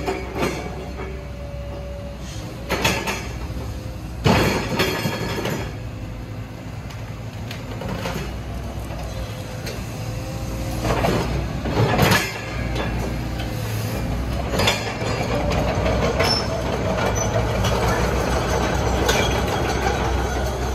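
Caterpillar 312D hydraulic excavator's diesel engine running steadily while the boom, arm and bucket are worked, with a wavering hydraulic whine and a few sharp clunks.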